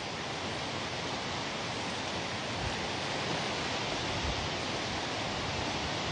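Steady, even hiss of storm rain and wind in the trees, with no distinct events.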